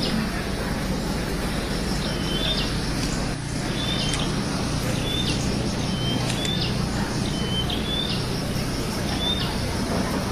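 Small birds chirping, short high chirps about once a second, over a steady din of a crowded hall.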